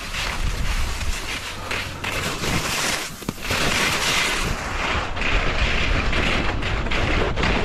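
Skis scraping and chattering over hard, wind-textured snow, with a crackly hiss. About halfway through, the hiss thins and a low rumble of wind buffeting the microphone grows stronger as the skier picks up speed.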